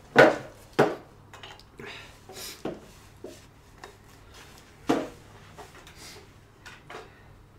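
Knocks and clatters of hard objects being handled: a sharp one about a quarter second in, another just under a second in and one about five seconds in, with lighter clicks between.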